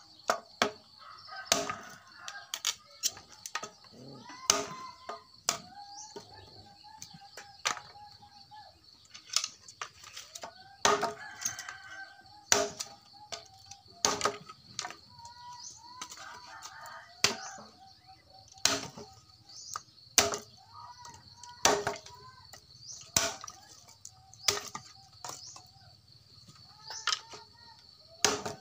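Dry branches being chopped by hand, sharp blows about every one and a half seconds. Between the blows, chickens cluck and a rooster crows, with a steady high hum underneath.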